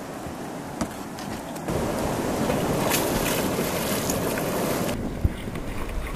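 Rushing water of class 1–2 river rapids with wind on the microphone. It grows louder about a second and a half in and drops back near the end, with a single knock shortly after.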